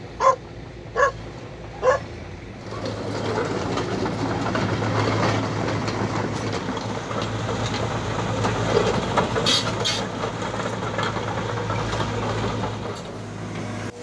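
A dog gives three short barks, about a second apart. Then a Caterpillar 320 GC hydraulic excavator's diesel engine runs steadily with a low hum, with a few sharp knocks partway through.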